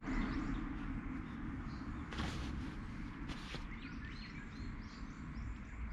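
Outdoor ambience: a steady low rumble with faint small birds chirping, and two brief hissing noises about two and three and a half seconds in.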